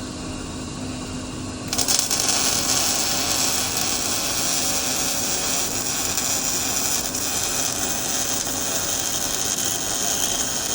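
Welding arc struck about two seconds in, then a steady, even crackling sizzle like bacon cooking as a bead is laid. The sound is consistent, without popping, which is the sign of correct travel speed and small, tight torch movements.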